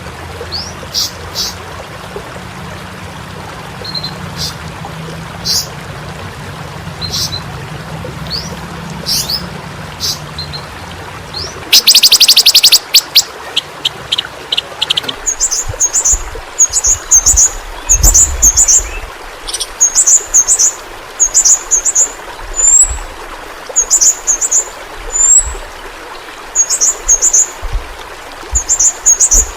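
Yellow-rumped flowerpecker (pentis pelangi) calling over a steady hiss like running water. Thin high calls come first, then a loud rapid ticking trill about twelve seconds in, then short high chirps repeated about once a second.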